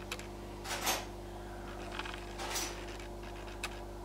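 A few faint, brief clinks and scrapes of teaspoons and cups being handled, about a second in, again about two and a half seconds in, and a sharp click near the end, over a steady low hum.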